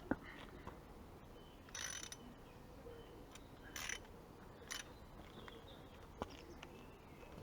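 Socket ratchet turning the nut on a motorcycle swing-arm pivot bolt, heard faintly: a few short bursts of pawl clicking, with a sharp metallic clink near the start and another about six seconds in.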